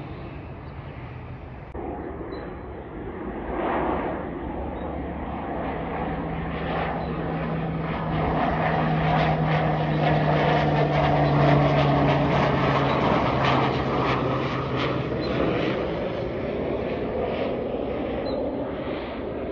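Single-engine turboprop airplane flying low overhead on approach. Its propeller and engine drone grows to its loudest about halfway through, then drops slightly in pitch and fades as the plane moves away.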